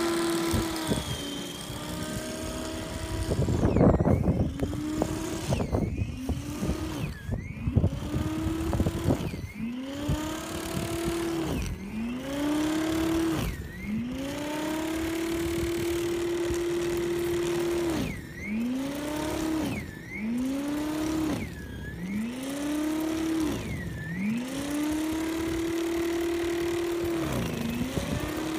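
Snow Joe SJ623E snow thrower's 15-amp electric motor running with a steady whine that again and again drops in pitch and climbs back: the motor bogging under the load of deep snow and recovering. A loud rough burst of noise about four seconds in.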